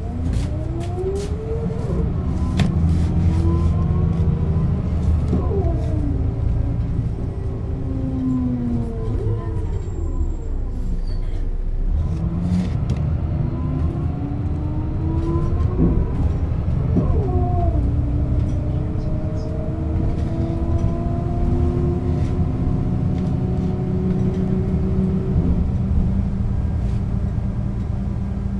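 1996 Setra S 315 UL bus's diesel engine and ZF gearbox driving. Its whine rises as it pulls away, changes gear about two seconds in, then falls as the bus slows. From about twelve seconds it rises again, changes gear a few seconds later and holds a steady pitch at cruise, then drops away about 25 seconds in.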